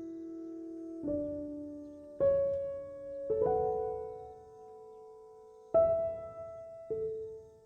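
Slow, calm solo piano music: soft chords struck about every one to two seconds, each left to ring and fade.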